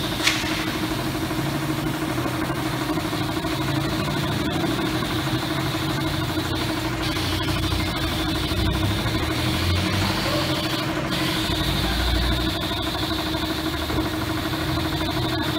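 Yamaha Sniper 150 single-cylinder engine, fitted with a dry clutch, idling steadily, with a short sharp click just after the start. A high steady whine runs over it and drops out briefly twice.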